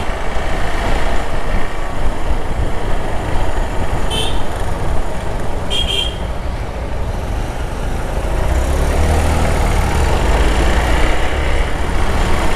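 Motorcycle riding through town traffic: steady engine and road noise, with short vehicle horn toots at the start and about four and six seconds in. The engine note grows stronger about eight seconds in.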